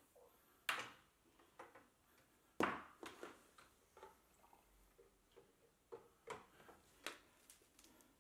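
Faint, scattered clicks and light knocks, several in all and the loudest about two and a half seconds in: plastic cable plugs being pushed into a standing desk's control box and the cables handled.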